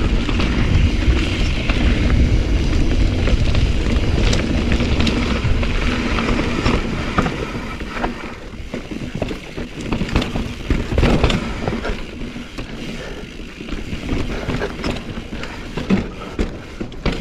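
Mountain bike ridden over rocky singletrack: tyres and bike knocking and rattling over stones under a low wind rumble on the microphone. It gets noticeably quieter about halfway through.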